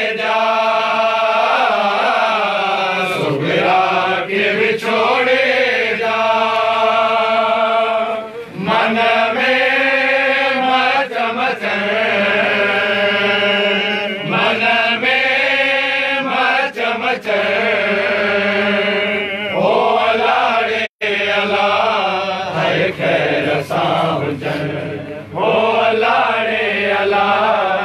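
Voices chanting a Sindhi noha, a Shia mourning lament, in long held lines that slide up and down in pitch. The sound drops out for an instant about three-quarters of the way through.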